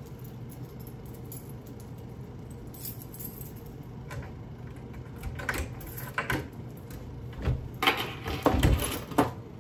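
Clinks and rattles of small hard objects being handled, coming in clusters in the second half and loudest just before the end, over a steady low hum.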